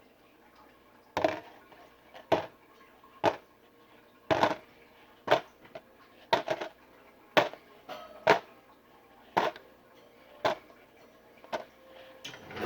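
A series of about a dozen sharp knocks, roughly one a second, in a small room.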